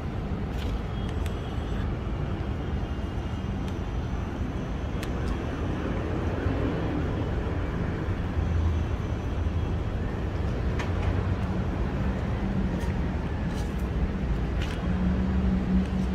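Steady low rumble of city traffic, with a faint hum and a few scattered faint clicks.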